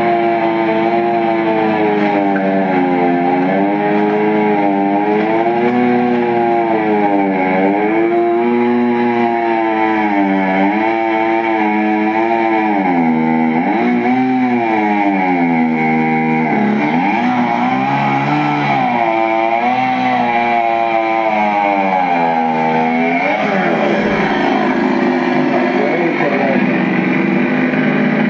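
Two-stroke chainsaw running hard, its engine speed rising and falling again and again as it works through a log. It drags lower for a few seconds past the middle, then climbs back up.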